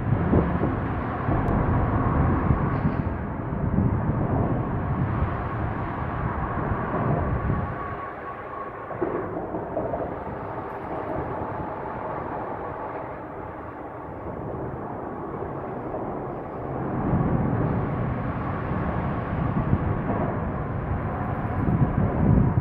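Low rumble of passing vehicles. It swells loud, eases off for several seconds in the middle, then builds again near the end.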